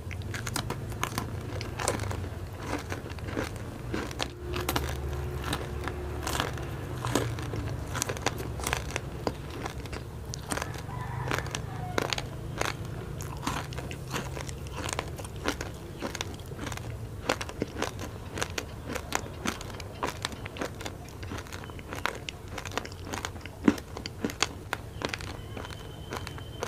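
Close-miked crunching and chewing of a sprinkle-coated candy stick, many sharp crackling crunches one after another.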